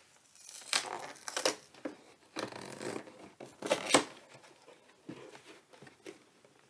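Packaging of a Pokémon TCG Shiny Boltund V collection box being torn open: a run of tearing and rustling bursts, the loudest about four seconds in, then softer handling ticks.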